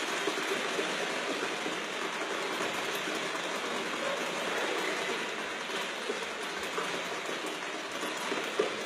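A group imitating rain with hands or small percussion: a dense, steady patter of many small taps and rustles.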